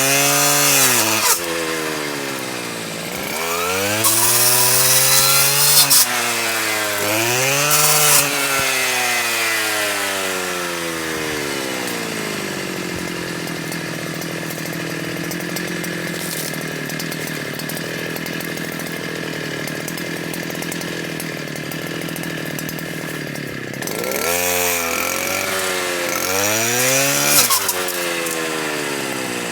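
Stihl KA 120 R brushcutter spinning a chainsaw-toothed circular saw blade, its speed rising and falling again and again, with rasping bursts as the blade cuts. Between about 12 and 24 seconds in it runs steadily, before speeding up and cutting again.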